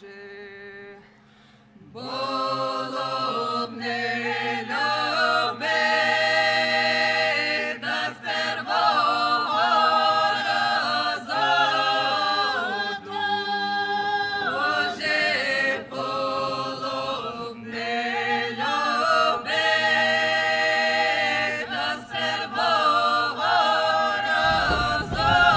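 Background music: several voices singing slow, sustained harmonies over a steady low drone, coming in about two seconds in.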